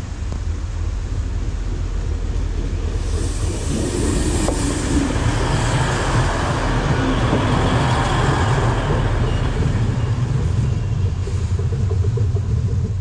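Diesel train passing close by: a low engine rumble with wheel-on-rail noise, building over the first few seconds and then staying loud and steady.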